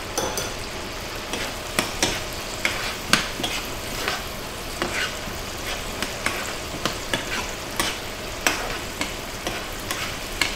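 Metal spoon stirring peanuts through a pan of sizzling sauce in a nonstick frying pan. A steady sizzle runs under irregular sharp clicks and scrapes of the spoon against the pan.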